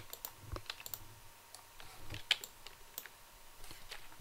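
Irregular clicks and taps of a computer keyboard and mouse, the loudest about two seconds in.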